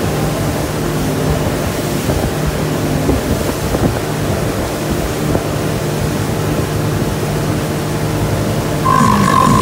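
Motorboat under way at towing speed: a steady rush of wind and churning wake water over a low, even engine drone, with wind buffeting the microphone. Near the end a steady high tone comes in.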